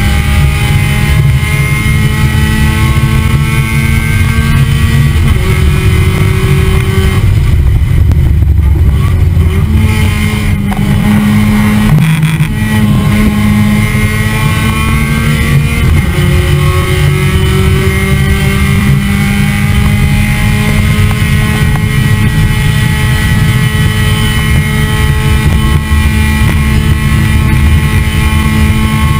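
On-board sound of a Mazda Miata race car's four-cylinder engine pulling hard. Its pitch climbs through each gear and drops at each upshift, with a lift off the throttle about a third of the way in.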